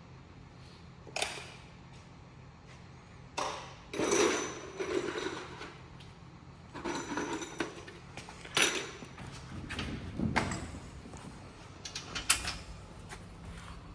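Irregular knocks, clacks and rattles of greenhouse door hardware being handled and fitted, with a handful of separate bursts spread through the stretch over a low steady hum.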